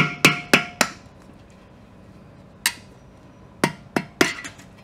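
Hammer striking a flathead screwdriver to drive the old main seal out of a ZF S5-42 transmission case. Four quick taps at the start, one on its own in the middle, and three more near the end. The first taps leave a short ringing tone.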